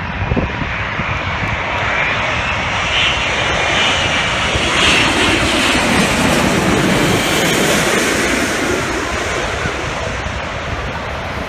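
Airbus A380 jet engines on final approach, passing low overhead: a loud roar with a high whine. It builds to its loudest about halfway through, then eases as the airliner moves away toward the runway.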